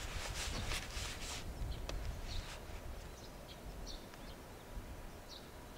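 Faint outdoor ambience: a few short, high bird chirps over a low rumble, with some rustling in the first second and a half.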